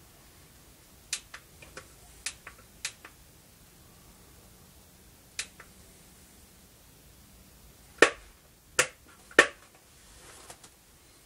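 Sharp plastic clicks from the hard hat's headlamp controls as its light is switched and adjusted: about a dozen clicks, several in quick press-and-release pairs, with the three loudest close together near the end.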